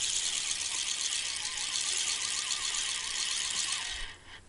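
Spinning reel on a feeder rod being cranked fast, a steady high-pitched mechanical whir, as a hooked fish is reeled in; the whir stops abruptly about four seconds in.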